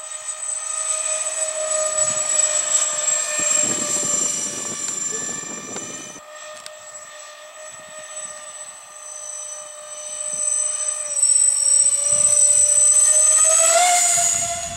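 Whine of a foam RC Lockheed C-141B Starlifter model's electric ducted fans in flight, a steady high-pitched tone. It grows louder as the model comes low overhead near the end, and the pitch drops as it passes.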